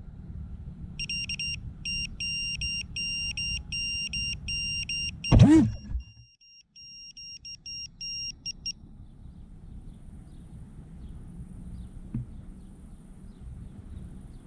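Rapid electronic beeping, about four short beeps a second, starting a second in and stopping just before the nine-second mark, over a low rumble. Halfway through, one loud sweep falls from high to low pitch.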